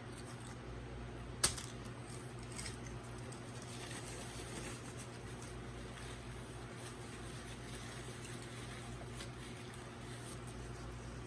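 A person chewing a bite of sandwich and wiping their mouth with a paper napkin, faint over the steady hum of an electric fan, with one sharp click about a second and a half in.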